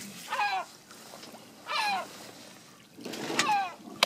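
A gull calling three times, each a short cry that falls in pitch. Near the end, water splashes at the boat's side as the hooked cod is brought alongside.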